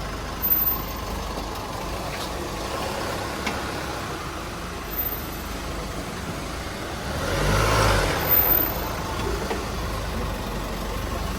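A vehicle engine running at idle, with a louder swell of engine noise about seven to eight seconds in and a few faint clicks.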